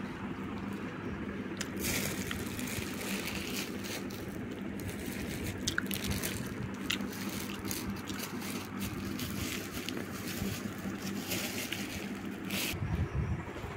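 Clear plastic snack packet of puffed-rice mix crinkling and crackling as it is handled, in irregular bursts over a steady low hum.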